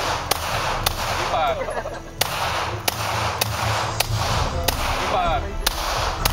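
Glock 17 9 mm pistol fired in a rapid string of about nine shots, roughly one every half second, with a longer pause after the first two.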